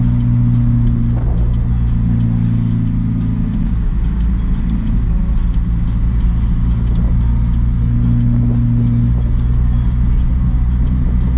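A JAC truck's engine running steadily while driving, a low drone over road noise, with a slight change in tone a few seconds in and again around eight seconds in.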